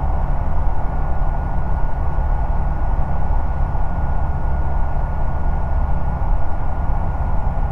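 Ikarus C42 microlight's engine and propeller running steadily in cruising flight, heard inside the cockpit as a constant low drone, with a thin steady high whine over it.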